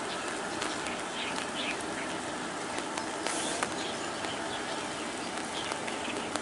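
Steady outdoor hiss with scattered short, faint chirps, likely small birds, and a few light clicks; a brief louder hiss comes about halfway through.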